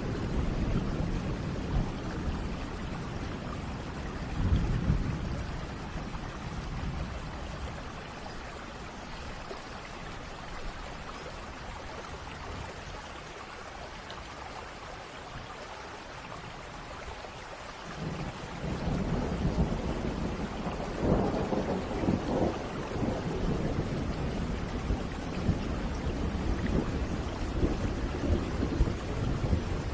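Steady rain with rolling thunder. There is a low rumble about five seconds in, then a quieter lull, and a long roll of thunder swells up just past halfway and rumbles on to the end.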